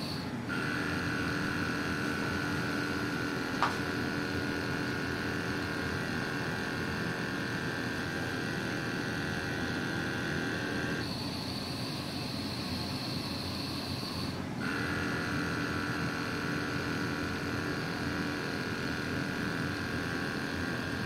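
Compresstome VF-300 vibrating microtome running while it cuts 150 µm slices of live mouse heart: a steady electric hum of its vibrating blade drive. Its tone shifts to a higher whine between about 11 and 15 seconds in, then drops back, with one faint click about 4 seconds in.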